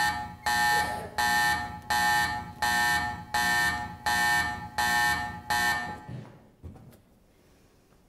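An electronic alarm buzzer sounding in even pulses, about one and a half a second, each starting sharply and fading before the next. It stops about six seconds in, followed by a faint knock.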